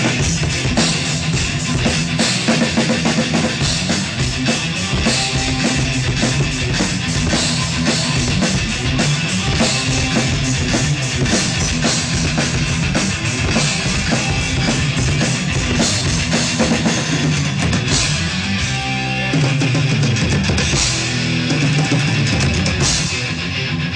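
Acoustic drum kit played in a driving rock beat along with rock music carrying electric guitar.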